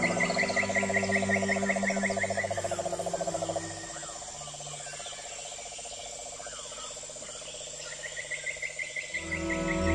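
Wildlife calls: a fast, evenly repeated trill of high notes in two runs, one near the start and one near the end. A lower, rapid pulsing trill stops about a third of the way in, and a few faint chirps fill the quieter middle.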